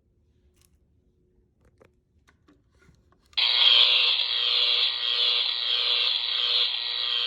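Lighted electric-fence Halloween decoration sounding its electric buzzing noise, which starts suddenly about three seconds in and runs on loudly with a slight regular pulsing. Before it, near silence with a few faint clicks.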